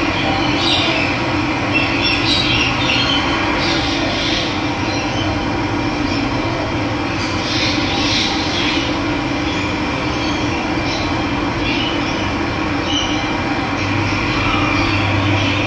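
Steady rush of running water, with birds chirping on and off over it, busiest in the first few seconds and again around eight seconds in.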